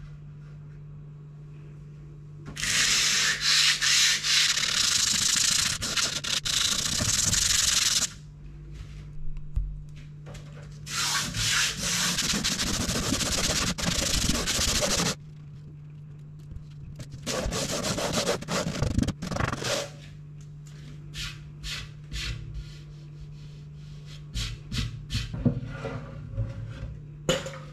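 Wooden cutting board being hand-sanded with sandpaper wrapped around a small box: three spells of steady back-and-forth rubbing, each a few seconds long, then a run of short scrapes and taps near the end. A low steady hum runs underneath.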